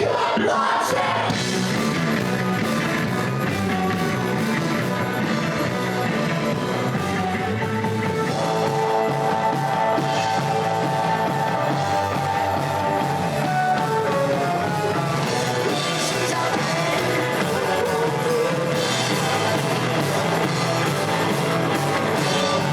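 Rock music with singing, guitar and drums, playing steadily throughout.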